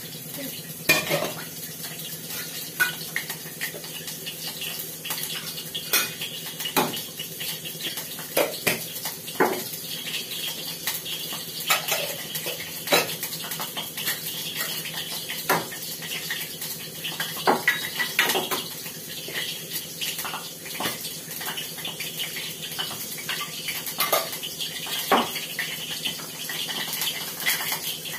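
Steel kitchen utensils and containers clinking and knocking as they are handled, in scattered knocks throughout, over a steady hiss.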